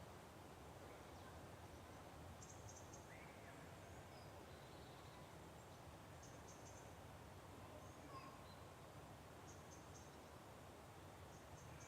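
Faint birdsong: short high chirping trills every few seconds and a few thin whistled notes, over a low steady background hum.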